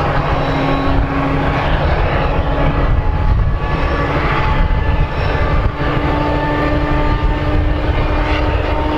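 Freightliner Class 70 diesel locomotive passing at the head of a container freight train, its engine running under power with a steady low drone and several high, steady whines over it.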